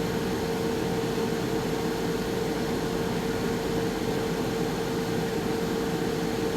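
Air fryer running: a steady fan whir with a constant hum.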